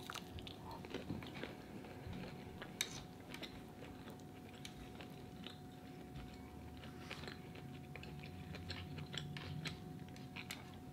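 Faint chewing of a person eating seafood boil, with scattered soft mouth clicks and a faint steady hum underneath.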